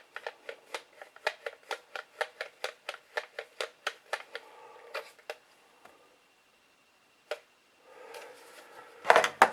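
A quick run of light, sharp clicks, about four a second for some five seconds, then two single clicks and a soft rustle near the end: small hand-handling clicks.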